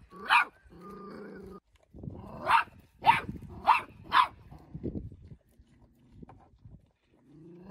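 Puppy barking in short, sharp, high yaps: one just after the start, then four in quick succession between about two and a half and four seconds in.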